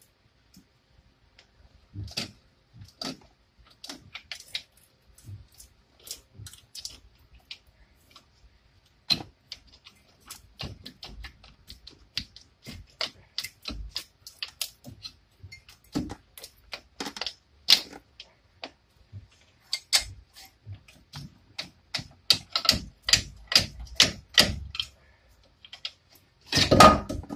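Irregular metallic clicks, taps and knocks as a front brake caliper is worked loose off the rotor and bracket, growing busier toward the end with a louder cluster of knocks.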